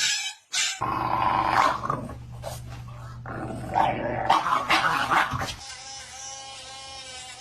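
A dog growling in a long, steady low rumble with louder snarling surges, a dog protesting at having its nails done. Near the end the growling stops and a steady hum takes over.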